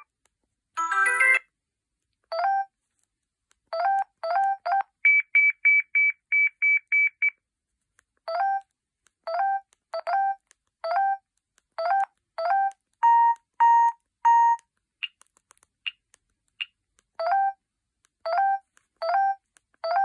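Huawei U5200 mobile phone beeping at each press of its navigation key, interleaved with short previews of its preloaded alert tones: a brief snatch of a ringtone about a second in, a run of quick high beeps at about four a second a little after the start, and four lower beeps past the middle.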